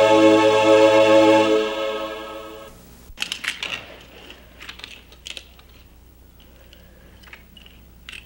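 A held chord of accompaniment music fades out over the first few seconds. After that come light, scattered clicks of small toy cars being handled and set down.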